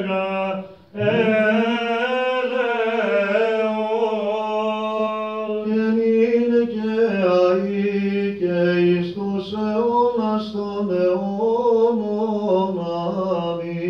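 Byzantine chant: a cantor sings a long, slowly turning melisma with no clear words. There is a brief break for breath about a second in, and a lower note stays almost steady beneath the moving melody.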